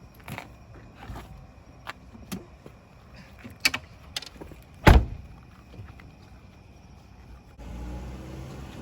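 Clicks and knocks of someone settling into a car, then a heavy thump about five seconds in like a car door shutting. Near the end the steady low hum of the car running sets in.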